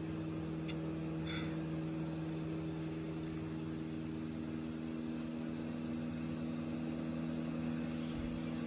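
Steady insect chirping, about three evenly spaced chirps a second, over a low steady hum.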